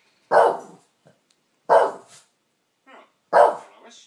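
Dog barking at a cat on the television: three single loud barks, about a second and a half apart.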